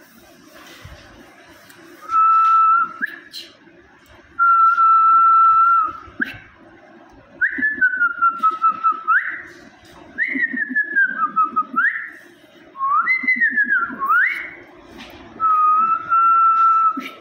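A person whistling in a string of separate phrases. Held notes at one steady pitch alternate with notes that slide down and quick upward sweeps.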